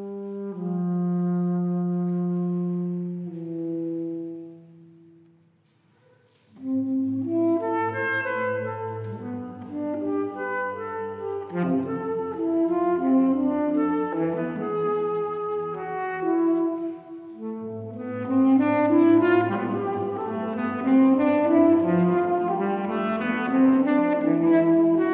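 Tenor saxophone playing: long held notes that fade away about five seconds in, then, after a brief near-silence, fast running figures over a sustained low bass note.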